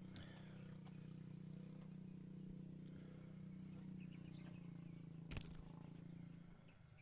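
Faint outdoor ambience of steady insect chirring high up, over a low steady hum that fades out near the end. A short knock comes just after five seconds in.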